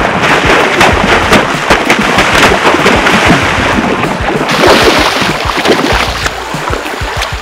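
A hooked snook thrashing at the surface of shallow surf: a loud, irregular run of splashes and water slaps.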